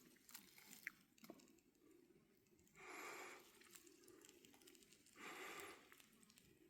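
Faint breathing of a person on a hike: two soft breaths a couple of seconds apart, with a few small clicks and rustles early on.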